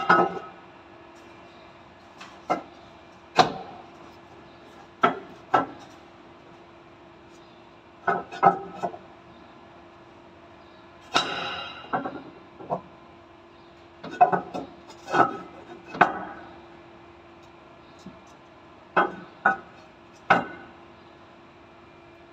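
Irregular sharp knocks and clacks of plumbing fittings and hand tools being handled and fitted, coming singly or in short clusters with pauses between, over a faint steady hum.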